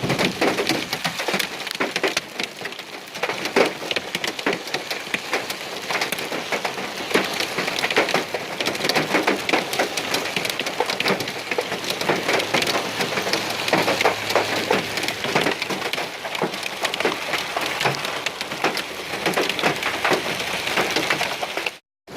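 Heavy rain and hail falling hard: a dense patter of many sharp impacts. The sound cuts out for a moment near the end.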